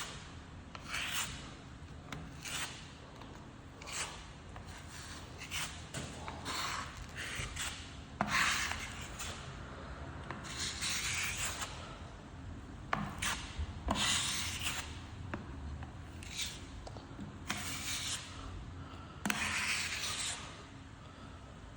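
Hand sanding on a repaired surface: irregular rubbing strokes of varying length, some quick and some drawn out over a second or more, with a few sharp clicks between them.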